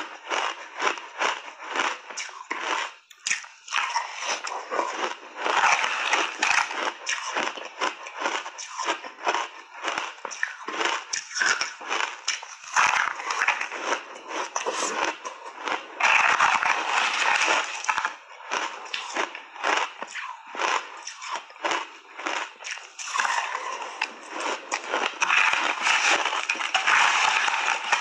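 Crunchy shaved ice dusted with matcha powder being bitten and chewed close to the microphone: a dense, continuous run of crisp crackles and crunches as the ice fragments break between the teeth.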